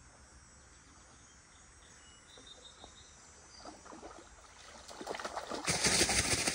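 Hooked trout splashing and thrashing at the water's surface as it is reeled in to the bank, the loud splashing starting about five and a half seconds in. Before it, only faint high insect chirps.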